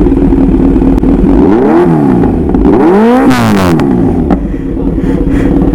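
Kawasaki Z900 inline-four running through a loud aftermarket exhaust with no dB killer fitted, idling and revved twice, the second blip higher. This is the non-original, over-loud exhaust that got the bike held by police.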